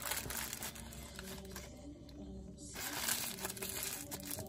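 Paper napkin being scrunched and crumpled in the hands while wiping the fingers, in two stretches of rustling with a short lull between them.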